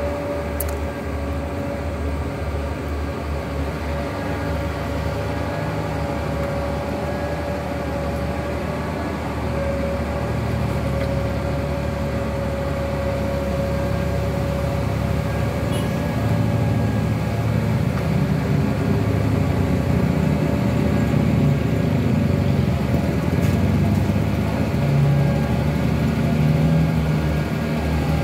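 Heavily loaded Mitsubishi Fuso 6x4 truck's diesel engine labouring uphill, a low rumble with a steady whine through it. It grows louder from about halfway on as the truck comes closer, with passing cars' engines mixed in.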